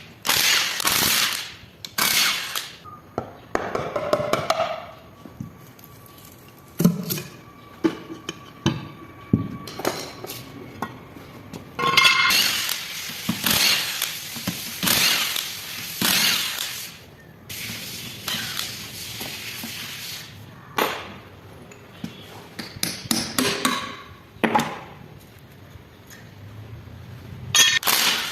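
Metal tools and parts of a Land Rover Defender transfer case clinking and knocking as it is taken apart, with irregular sharp taps and short bursts of scraping.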